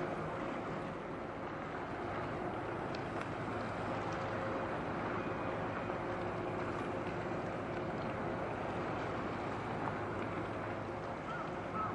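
Steady low drone of a large container ship's engine under way, a few constant hum tones over a haze of wind and water noise.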